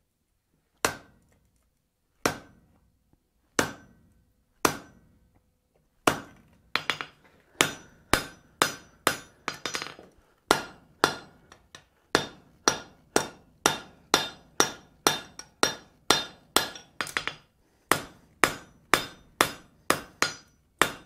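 Blacksmith's hand hammer striking red-hot steel on an anvil, drawing out the bar: four spaced blows, then from about six seconds in a steady run of a little over two blows a second, each with a short metallic ring.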